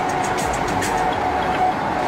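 Music with a long held note, over the steady road noise of a car being driven.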